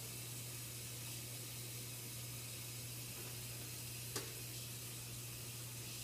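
Steady hiss and a low hum of room noise, with one short sharp click about four seconds in.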